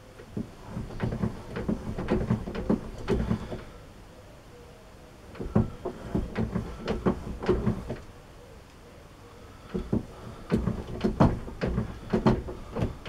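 Irregular knocks and clicks of metal parts and tools being worked by hand, in three bursts with quieter pauses between them.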